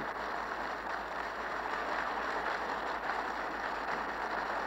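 Steady applause from the parliamentary chamber, heard muffled and narrow-toned through an old radio broadcast taped on a tape recorder, with a low mains hum underneath.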